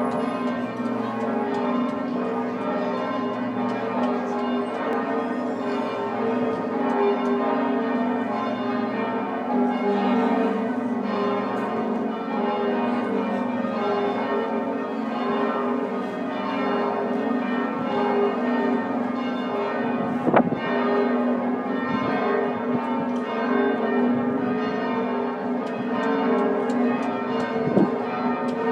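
The bells of Sint-Baafs Cathedral in Ghent pealing together, several swinging bells sounding in continuous overlapping strokes. A brief sharp knock comes about twenty seconds in and another near the end.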